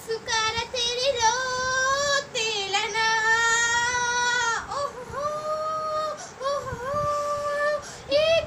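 A young girl singing without accompaniment in a high voice, with several long held notes that waver up and down and short gaps for breath between phrases.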